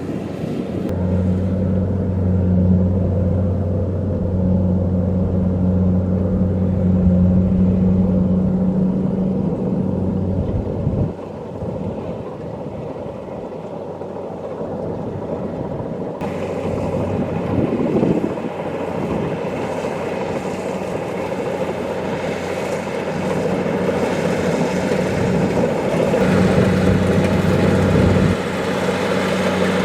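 Kubota DC-70 Plus combine harvester running steadily while it harvests rice, with a low diesel engine drone. The drone weakens about a third of the way in and comes back stronger near the end.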